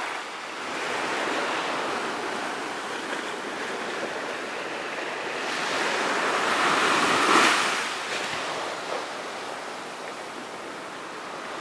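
Ocean waves washing onto a beach, a steady rush with one wave breaking loudest about seven seconds in before easing off.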